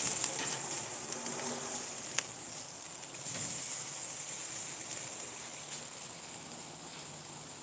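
Gas grill with steaks, corn and sausages cooking over the flames, giving a steady high sizzling hiss, with a single click about two seconds in.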